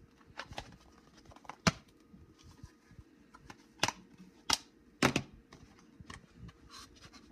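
Irregular sharp clicks and knocks of plastic DVD cases being handled and set down on a wooden desk, about half a dozen clear ones with softer rustling between. A faint steady hum runs underneath.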